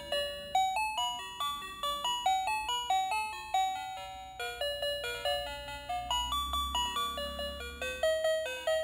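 Electronic chime melody from a battery toy's sound chip: single bell-like notes stepping up and down, about three a second, over a faint low rumble.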